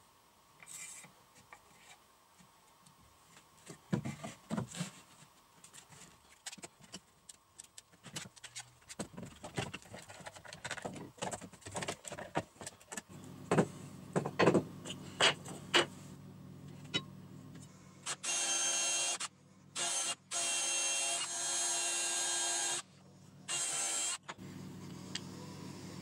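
Wooden pieces handled and knocked on a wooden workbench, with a scatter of light clicks and taps. Then a small electric power tool runs in four bursts, the longest about three seconds, followed by a lower steady hum.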